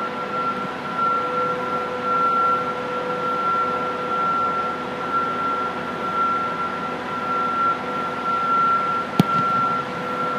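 Steady hum of a large indoor building's ventilation, with a constant tone in it, and a few faint ticks. About nine seconds in, one sharp thud of a kicker's foot striking a football on a field goal attempt.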